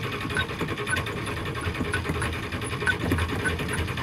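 Starter motor cranking the cold Chrysler 440 big-block V8 of a 1979 Winnebago, steadily, without the engine catching, after it has sat for about a month; the cranking stops near the end.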